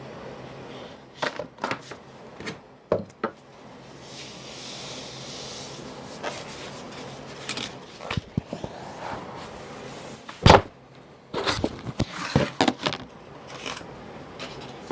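Handling noise as a fabric desk mat is unrolled and laid out on a desk: scattered knocks, taps and rustling, with one loud thump about ten and a half seconds in.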